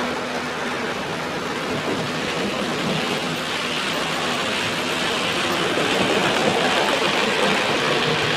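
Model trains running on the layout: a steady rushing rumble of wheels on track that grows slightly louder near the end.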